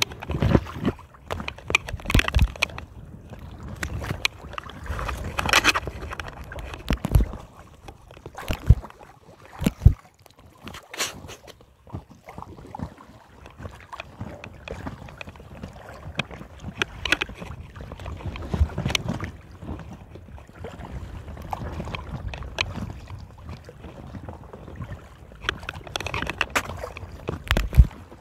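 Paddle strokes splashing and water sloshing around an inflatable kayak, in irregular bursts, with a low rumble of wind on the microphone.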